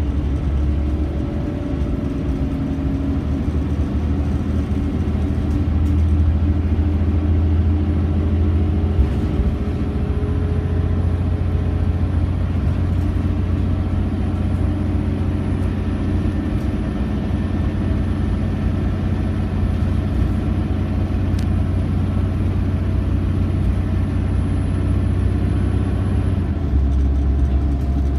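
Scania OmniCity single-deck bus heard from inside the passenger saloon on the move: a steady diesel engine drone and road rumble, the engine note drifting gently up and down with speed. The low drone changes about two seconds before the end.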